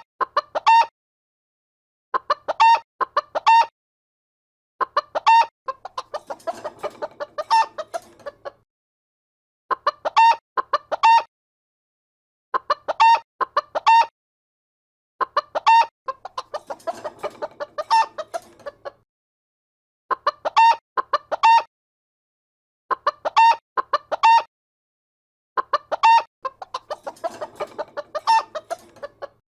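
Chicken clucking in quick runs of short clucks, each run followed by a longer, rougher squawking cackle. The pattern repeats about every 10 seconds, with dead silence between the runs, as in a looped sound-effect clip.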